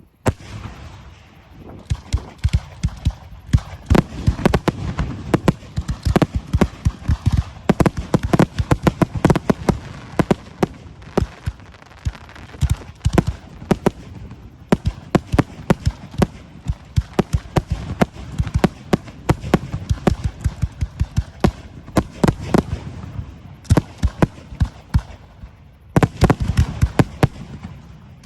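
Fireworks display: aerial shells bursting in rapid, dense volleys, many loud bangs a second, easing briefly near the end before picking up again.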